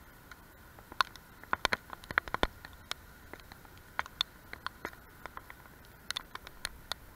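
Scattered sharp clicks and taps at irregular intervals, with a quick cluster of them about one to two and a half seconds in.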